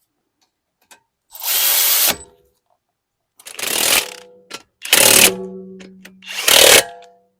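A power tool running in four short bursts, each under a second long. A low tone fades slowly after the third burst as the motor spins down. The tool is likely running home the caliper bolts on the refitted brake caliper.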